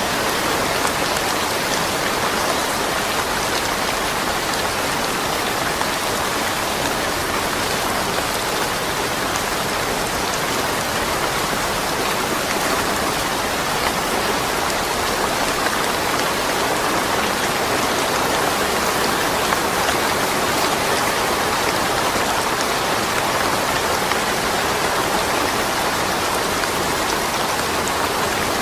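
Steady rain falling, an even patter with no thunder.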